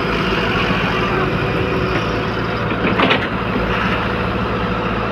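Large truck's diesel engine idling with a steady low drone. A brief sharp sound stands out about three seconds in.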